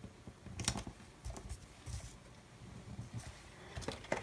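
Faint scattered rustles and light taps of hands on a paper planner page as a sticker is pressed down onto it.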